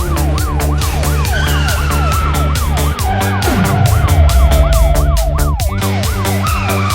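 Fast yelping siren sound effect, its pitch sweeping up and down about three times a second, laid over electronic background music with a steady beat. A few long falling tones glide down over it.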